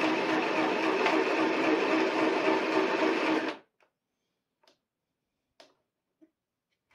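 Compact electric sewing machine (FHSM-505B-NSET) running steadily as it stitches fabric, a noisy, even mechanical whir that cuts off suddenly about three and a half seconds in when it is switched off. A few faint clicks follow.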